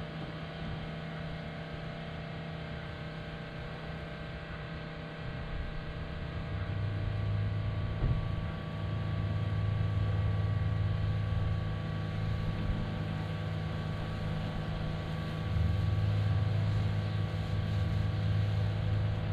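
Steady low drone of a motor running, growing louder about six seconds in and staying up, with a dip near the middle.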